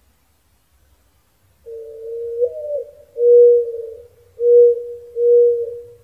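Mourning dove cooing its song: a drawn-out opening coo that swoops up and back down, then three shorter, steady coos, starting about a second and a half in.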